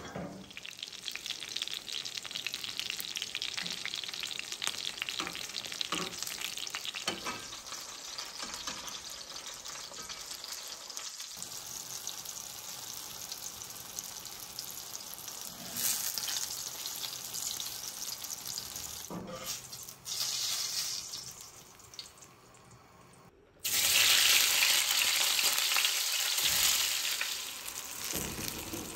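Eggplant slices frying in hot oil in a pan: a steady sizzle with a few light knocks. Near the end it dips briefly, then comes back much louder.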